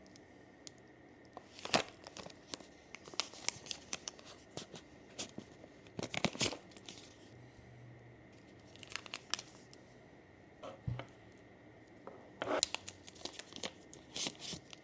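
Gimbal packaging being handled and opened: crinkling and tearing in irregular short bursts, with small clicks from handling.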